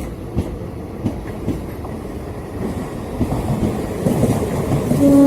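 Train running on the rails, its wheels clicking over the rail joints, growing louder from about three seconds in. Near the end a steady horn starts.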